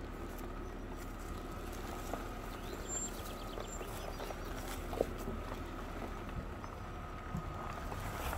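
BMW 525i's straight-six engine running low as the car creeps over a rough dirt track, a steady low hum under scattered ticks and pops of stones and gravel under the tyres, one sharper knock about five seconds in.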